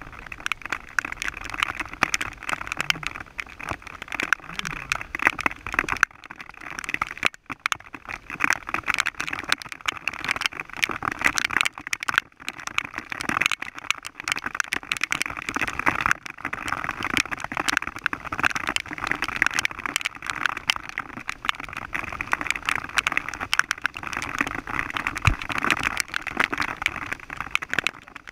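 Rain pattering: a dense, irregular tapping that runs throughout, with a few brief lulls.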